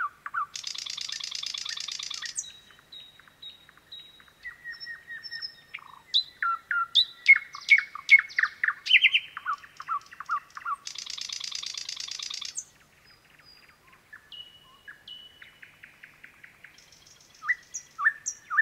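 Thrush nightingale singing: a varied song of sharp clicking notes, whistles and fast repeated phrases, broken by two long dry rattles, one starting about half a second in and another about eleven seconds in.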